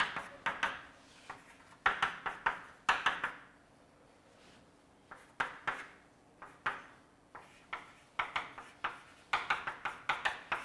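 Chalk writing on a blackboard: quick clusters of sharp taps and short scratchy strokes as equations are written, with a couple of brief pauses between groups of strokes.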